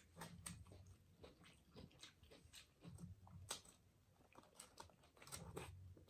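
Faint, close-up eating sounds: a bite into a soft-bun chicken sandwich about three and a half seconds in, then wet chewing with sharp mouth clicks and lip smacks.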